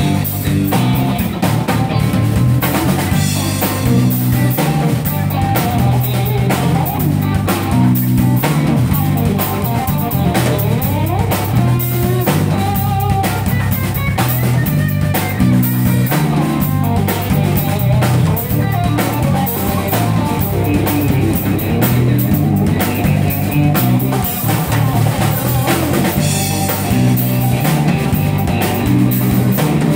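Live blues band playing an instrumental section: electric guitar lead lines with bent notes over a repeating electric bass line and a drum kit.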